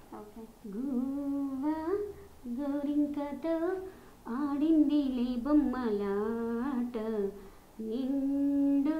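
A woman singing a slow song unaccompanied, in long drawn-out phrases with short breaks between them.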